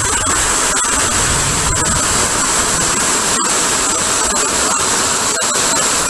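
Vacuum cleaner running steadily, sucking air through its hose: a constant rushing hiss with a high, steady whine on top.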